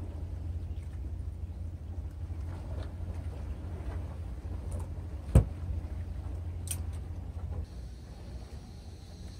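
Steady low rumble with a few light clicks, broken by one sharp knock a little past halfway, the loudest sound. Near the end the rumble drops away and a faint steady high tone comes in.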